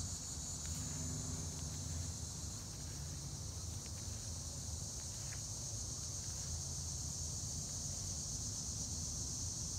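Steady high-pitched chorus of insects such as crickets, unbroken throughout, over a low steady rumble.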